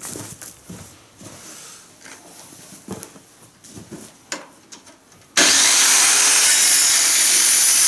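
A few light knocks and scrapes as the saw is lined up on the plank. Then, about five seconds in, a corded electric circular saw starts cutting through an old wooden board with a loud, steady cutting noise that starts abruptly.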